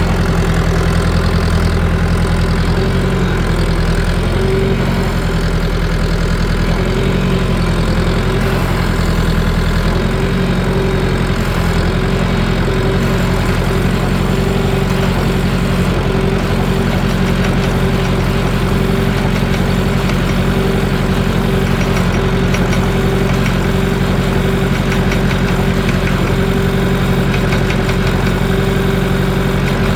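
Farm machinery engine running steadily at constant speed while a TMR feed mixer mixes a load of cattle feed, with a steady tone above the engine.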